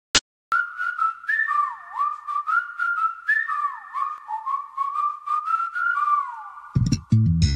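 A whistled melody with sliding notes opening a song, preceded by a brief click. Near the end, a band with a heavy bass beat comes in under the whistling.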